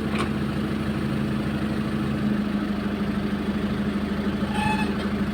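Excavator engine idling steadily with a low, even hum. Near the end a short, high tone with a steady pitch sounds over it for about half a second.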